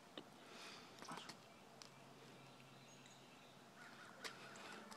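Near silence, with a few faint soft clicks and rustles.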